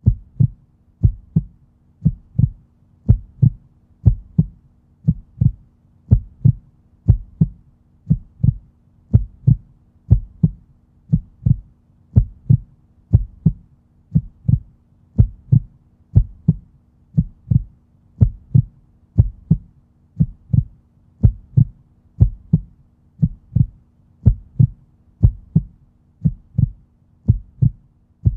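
Heartbeat sound effect: paired low thumps, lub-dub, about one beat a second, over a faint steady hum.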